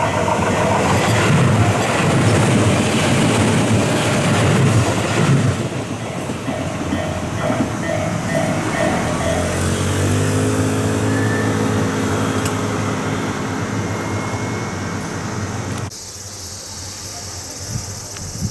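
A train passing over a level crossing, with a loud rumble of wheels on rail. For the first half a repeating pattern of tones rings out, typical of the crossing's warning alarm; from the middle a set of steady tones slowly rises in pitch as the train runs on. A few seconds before the end the sound cuts abruptly to a much quieter outdoor background.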